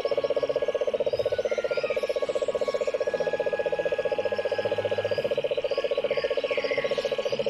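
A loud, rapid trill of even pulses, about a dozen a second at one steady mid pitch, starting and stopping abruptly. Faint bird chirps sound behind it.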